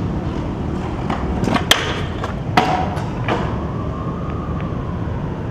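Stunt scooter wheels rolling over hard ground, with several sharp clacks as the scooter strikes the ground; the loudest clack comes a little under two seconds in.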